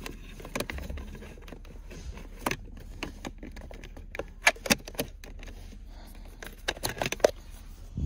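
Scattered sharp clicks and light rattles of plastic steering-wheel parts and fittings being handled and pried apart, with a cluster of quick clicks near the middle and another just before the end.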